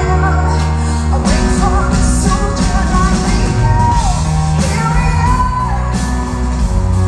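Live rock band performing, with a woman singing lead over keyboards, electric guitars, bass and drums, heard through the hall's PA from among the audience.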